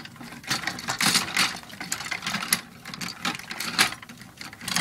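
Hard plastic parts of a Transformers Ultimate Optimus Prime toy clicking, scraping and rattling as hands fit the robot figure down into its trailer: a string of irregular clicks and scrapes with a few sharper knocks.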